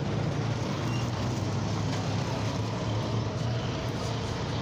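Motorcycle engine running steadily, an even low hum with no change in speed.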